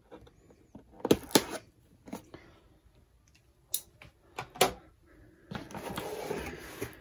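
Packing tape on a cardboard box being cut with a knife and the box opened: a few sharp clicks and cracks, then a longer scraping rustle of cardboard near the end.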